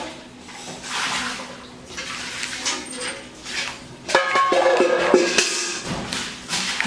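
A plastic Kinder Joy toy capsule rustling and scraping as a small child pries at it with hands and teeth. A short pitched, music-like sound is heard about four seconds in.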